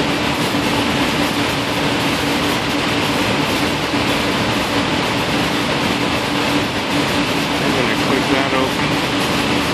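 Steady rushing background noise with a constant low hum underneath.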